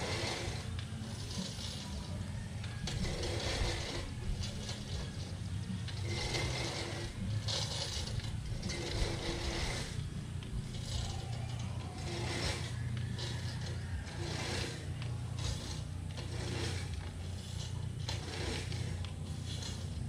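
Manual push reel mower whirring and clicking as its blades spin and cut grass, in repeated strokes about every second or so as it is pushed back and forth, over a steady low hum.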